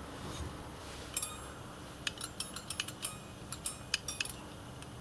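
Reversing lever of a model steam locomotive's reversing stand being worked through its notched quadrant, the spring-loaded latch clicking into the slots. One light click about a second in, then a quick run of about a dozen sharp metallic clicks.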